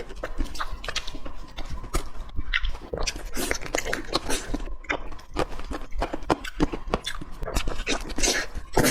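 Close-miked chewing and mouth sounds of someone eating, with many quick wet smacks and bites.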